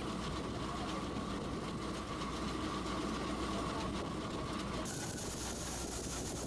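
John Deere combine harvester running steadily in wheat: engine hum under the threshing machinery, with a steady whine. About five seconds in, the sound shifts to the combine unloading grain through its auger, with the whine gone and more hiss.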